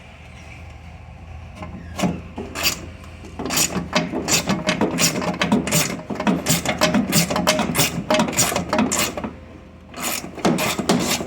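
Ratchet wrench clicking in quick, uneven strokes as a bolt is backed out, with a short pause near the end before more strokes.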